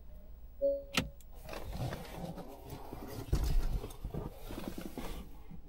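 Faint rustling and shuffling of someone moving about in a car's driver seat, with a short beep just under a second in and a sharp click right after it.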